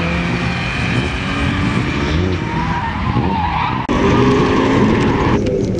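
A car engine revving hard, with tyre squeal, as a car is driven fast through autoslalom turns. About four seconds in, the sound cuts suddenly to an engine running at a steadier note.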